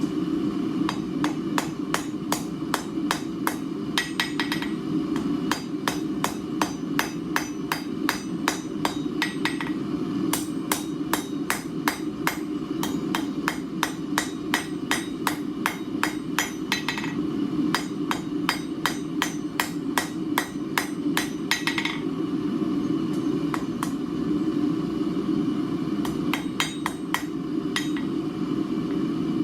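Blacksmith's hammer striking a hot steel bar on an anvil in a steady rhythm of about three blows a second, with a ringing note on each blow and a few short pauses. The bar's square corners are being knocked down to round it off.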